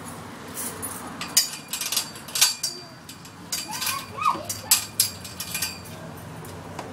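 A run of sharp clicks and knocks, irregularly spaced, with a short squeaky rising-and-falling call about four seconds in.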